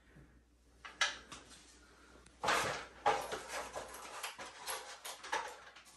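Small hardware being handled: wall plugs and screws clicking and rattling, with a couple of sharp clicks about a second in and a dense run of clicks and rattles through the second half.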